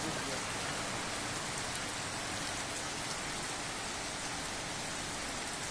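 Steady heavy rain falling onto floodwater and a flooded street, a continuous even hiss.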